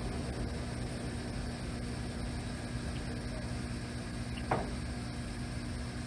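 LeBlond hollow-spindle sliding bed lathe running with its spindle turning unloaded at one of its speed settings, a steady mechanical hum. A single sharp clack comes about four and a half seconds in.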